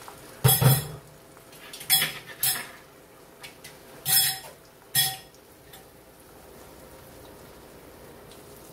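Utensil and dish clatter: about six sharp clinks and knocks in the first five seconds, like a fork and mixing bowl being handled and set down. After that comes a faint steady hiss of beaten eggs frying in the hot pan.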